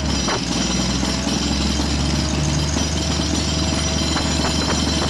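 Heavy demolition machinery running steadily, with a fast, even mechanical hammering under the engine noise.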